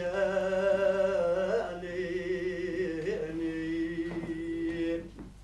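A man singing a Turkish folk song unaccompanied, drawing out long wavering notes with short slides between them; the sung word "gelin" comes about two seconds in, and the last held note fades near the end.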